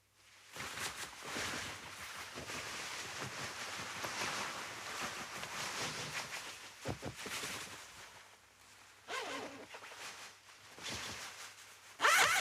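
Nylon windbreaker jacket rustling as it is handled and put on, with several shorter swishes of fabric, then a quick, loud zipper pull near the end.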